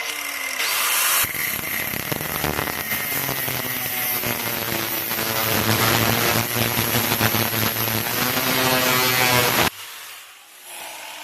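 Angle grinder with a cut-off wheel cutting through metal, a loud steady grinding that starts abruptly and runs for about ten seconds before the grinder is switched off near the end and winds down.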